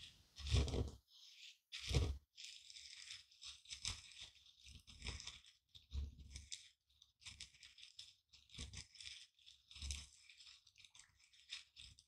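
Pestle crushing and grinding dry seeds in a mortar: a constant crunching and crackling of the seeds breaking, with a dull knock every second or so as the pestle strikes down.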